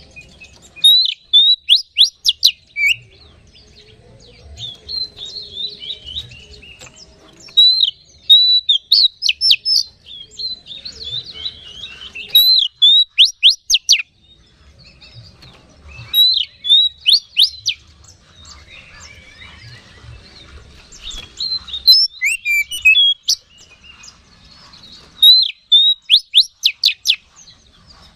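Oriental magpie-robin singing loudly in repeated bouts, whistled phrases breaking into rapid runs of sharp, steeply falling notes, about six bouts with softer twittering between them.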